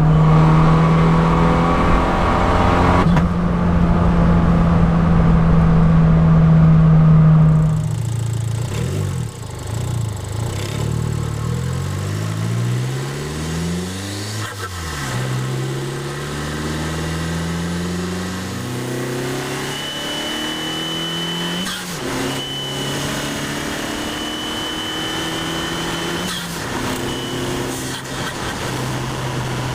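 Abarth 500 esseesse's turbocharged 1.4-litre four-cylinder with a Garrett 1446 turbo and aftermarket exhaust, heard from inside the car on the move. The engine holds a loud steady note for several seconds, then the revs drop and swing up and down. It then settles to a steadier, lower note, with a thin high whistle over it for several seconds near the end.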